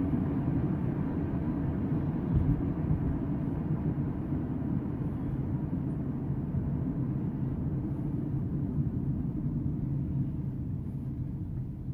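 Road noise inside a moving car's cabin: a steady low rumble of tyres and engine, with a brief thump about two seconds in.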